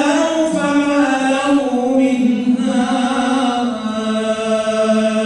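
A man's voice chanting Quran recitation (tajwid), a melodic solo line that draws out long held notes gliding between pitches.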